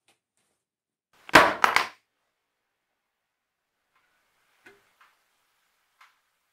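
Things being put down hard on a worn wooden table: a loud knock of a few quick strikes about a second and a half in, then a few faint light taps later on.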